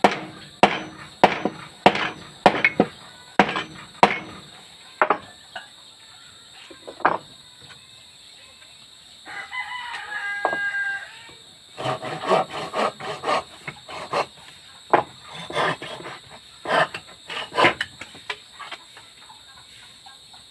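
Repeated hammer blows on wood, a quick series of sharp knocks at the start and another run in the second half. A rooster crows once about halfway through.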